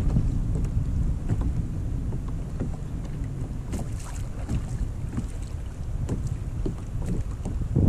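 Wind buffeting the microphone on a kayak at sea, a heavy rumble that eases in the middle and picks up again near the end, with scattered small splashes and knocks of water against the hull.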